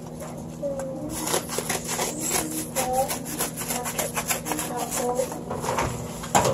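Scissors cutting open a padded paper mailer, the paper crackling and rustling in quick, irregular crinkles, with a louder crackle shortly before the end.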